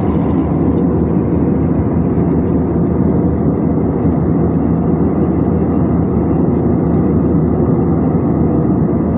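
Steady cabin noise of a Vietjet airliner in cruise flight: jet engines and airflow over the fuselage make a loud, even rumble that does not change.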